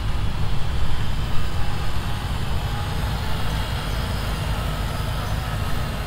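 Farmall Cub tractor's small four-cylinder engine running steadily as the tractor drives slowly past.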